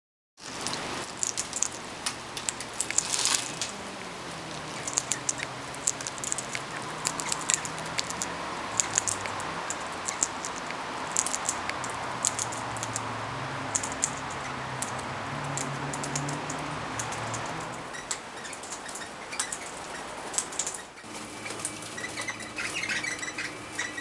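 Parrots feeding on seed: many short, sharp clicks and taps at irregular intervals from beaks and feet, with a few brief chirps near the end. A steady low hum runs underneath.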